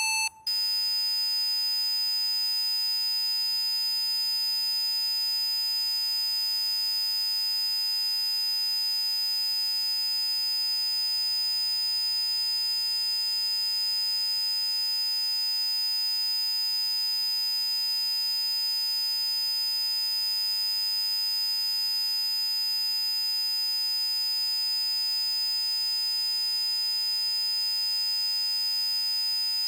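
Electronically generated PC Zapper frequency tones: about half a second in, one tone set cuts off for a moment and a new one starts, a steady high-pitched pure tone over a fainter lower tone, holding unchanged without any rhythm.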